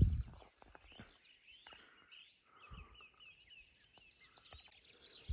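Small songbirds singing: many short chirps and trills overlapping throughout. A brief low thump comes right at the start.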